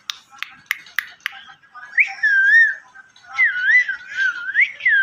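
Indian ringneck parakeet, agitated, making about five sharp beak clicks and then two bouts of wavering, whistled warbling calls.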